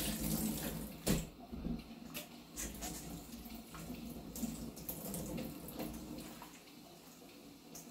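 Kitchen tap running into a stainless steel bowl as a webfoot octopus is rinsed by hand, with a few light knocks of the bowl and hands.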